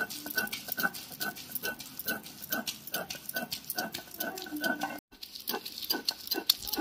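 Stone grinding stone (sil-lodha) rubbed back and forth over soaked moong dal on a stone slab, making rhythmic gritty scrapes at about two strokes a second. The sound breaks off for a moment about five seconds in, then goes on.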